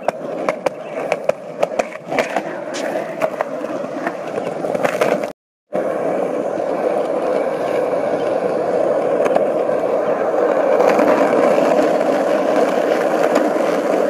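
Skateboard wheels rolling. For the first five seconds they click about twice a second over the joints of a concrete slab sidewalk. After a brief dropout they give a steady rolling rumble on rough asphalt.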